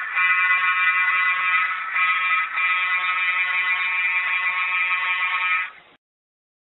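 Diesel locomotive horn from an HO-scale model GP9's sound unit, played through a small onboard speaker and sounded in long blasts with short breaks, cutting off sharply about six seconds in.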